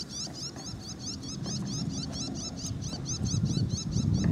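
A small bird calling from a nearby tree: a rapid, even series of short high chirps, about five a second. A low rumble builds near the end.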